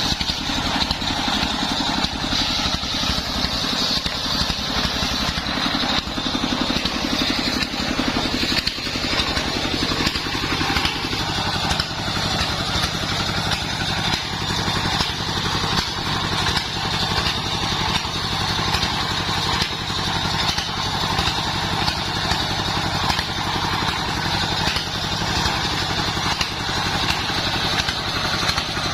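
Engine of a homemade circular-saw rig running steadily under way, with a regular pulsing beat; its low tone shifts slightly about nine seconds in.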